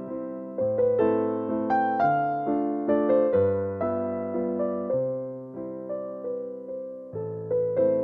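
Background music on a piano-like keyboard: a gentle melody over low bass notes, new notes struck about twice a second and each fading away.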